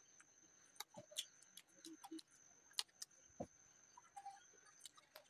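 Soft eating sounds: scattered small clicks and smacks of closed-mouth chewing and of fingers tearing a soft pav bread roll, the clearest click nearly three seconds in. A faint steady high whine runs underneath.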